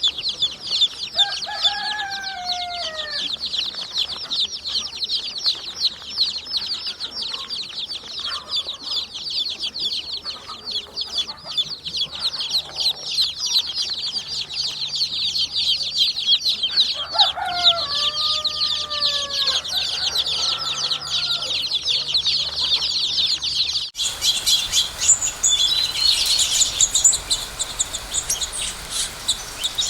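A dense chorus of many small birds chirping rapidly and continuously, with a few lower, falling calls twice. About three-quarters of the way through it cuts abruptly to a different recording of more varied birdsong.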